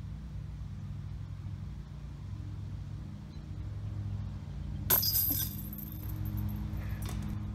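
A disc golf disc strikes the metal chain basket about five seconds in: one sharp clank followed by a second or two of metallic ringing and jingling. The disc ends up on the grass beside the basket, so the putt was missed. A steady low rumble sits underneath.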